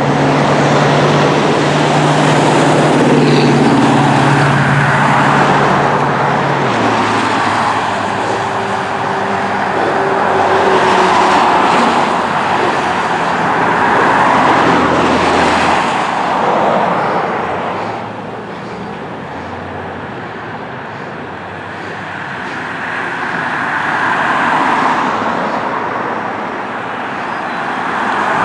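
Road traffic on a wet two-lane highway: cars and trucks passing one after another, their tyre hiss swelling and fading as each goes by. A low engine drone sounds through the first several seconds, and the traffic eases for a few seconds past the middle.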